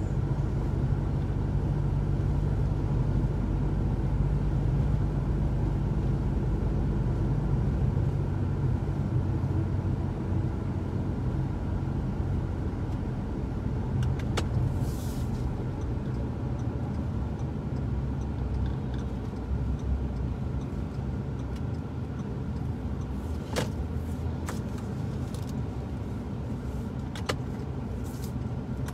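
Car driving at a steady speed, heard inside the cabin: a continuous low engine and road rumble, with a few sharp clicks or rattles in the second half.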